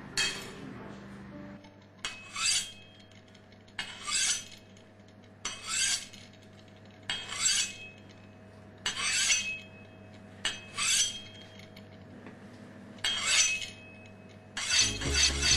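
A large metal kitchen blade scraped in slow, even rasping strokes, about eight of them, each a quick tick and a short swish, roughly a second and a half apart. Music starts near the end.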